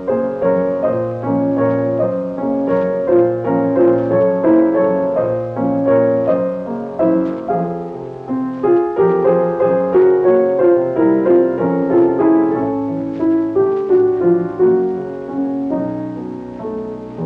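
Piano music: a steady, flowing melody with several notes struck each second over a recurring bass figure.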